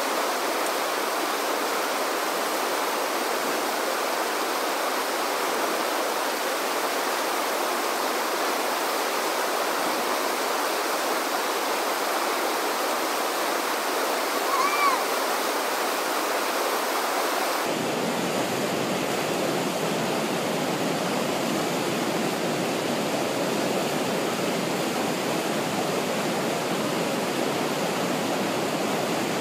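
Steady rushing of whitewater from a river standing wave. A brief high chirp sounds about halfway through, and the water sound turns fuller and lower about two-thirds of the way in.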